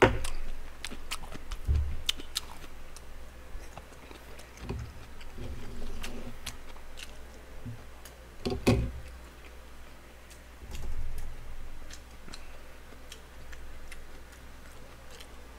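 A person chewing food close to the microphone, with scattered sharp clicks of chopsticks and a metal spoon against the bowl and pot.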